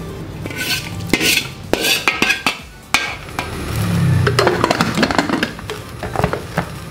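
Metal ladle scooping thick curry from a wok into an aluminium pressure cooker, clinking and scraping against the pots. About four seconds in, the pressure cooker's aluminium lid is set on and twisted to lock, metal scraping on metal.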